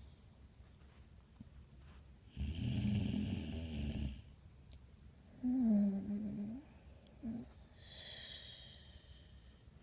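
Snoring sound effect: a long rattling snore in, then a shorter snore with a falling voiced tone, and a wheezy, whistling breath out near the end.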